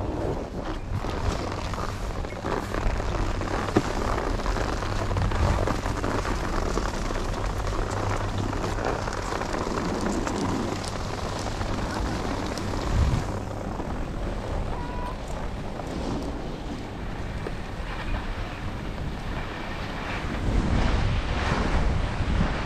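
Skis sliding and scraping over packed snow, mixed with wind buffeting the microphone; the high hiss thins out about halfway through.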